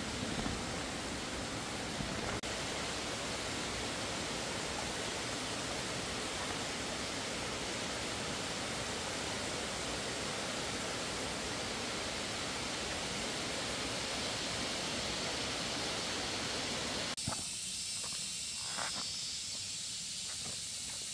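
A steady, even rushing noise with no distinct events. About 17 seconds in it cuts abruptly to a higher, thinner hiss broken by a few faint clicks.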